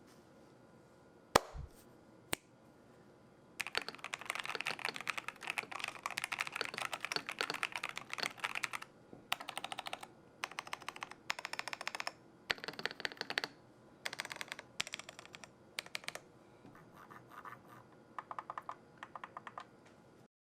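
Typing sound test on a Razer BlackWidow V4 75% mechanical keyboard in stock form with Razer tactile switches: two sharp knocks, then fast clacking keystrokes, first in a long run and then in shorter bursts with pauses, softer near the end.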